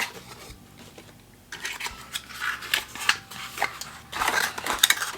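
A small cosmetic product's packaging being handled and opened: scratchy rubbing and light sharp clicks that start about a second and a half in and get busier near the end.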